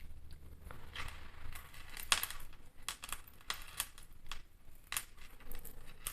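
Beads of handmade bead jewelry clicking and clinking against each other as the pieces are handled, in irregular light clicks.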